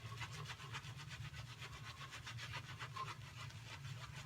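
Boar-bristle shaving brush swirled rapidly over shaving-cream lather on a face, a scratchy brushing at about five strokes a second as the lather is worked up.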